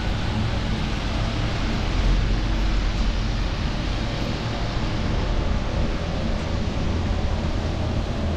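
Steady rushing noise of a bicycle ride in the rain: wind buffeting the camera microphone, mixed with wet-road and traffic noise, with a heavy low rumble.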